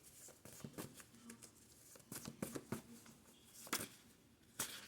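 Faint rustling and light clicks of cards being handled, a few sharper ones scattered through.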